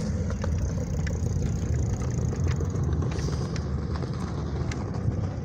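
Steady low rumble of wind and rolling on a phone microphone while riding a bicycle along a paved path, with scattered light clicks.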